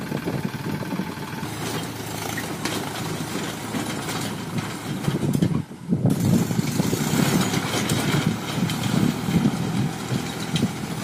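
Diesel tractor engine running steadily under load while it pulls a rotavator through dry soil. The sound drops out briefly a little before the middle and then resumes somewhat louder.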